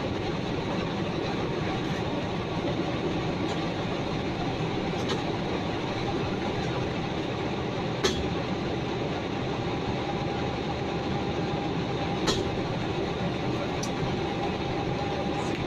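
1989 Chevrolet S10 Blazer engine running steadily and loud through a leaking exhaust, with two sharp clicks, about eight and about twelve seconds in.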